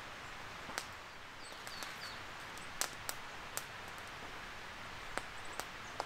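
Steady outdoor hiss broken by irregular sharp crackles or clicks, with a quick run of three short, falling bird chirps about one and a half to two seconds in.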